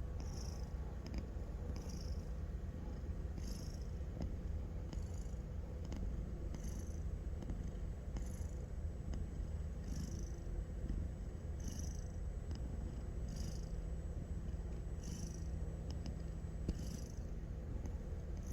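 A sleeping house cat snoring: a steady low rumble with a soft breathy puff a little under every two seconds, one per breath.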